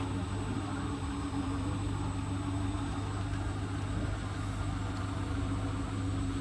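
Hotpoint WT761 Ultima washing machine running steadily with a constant low hum, during its 600 rpm intermediate spin after the first rinse.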